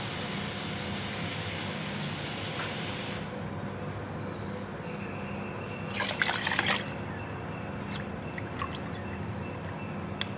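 Liquid moving in a rice cooker's inner pot of rice, water and chicken: a steady watery hiss that stops about three seconds in, a short splash about six seconds in, then a few faint clicks.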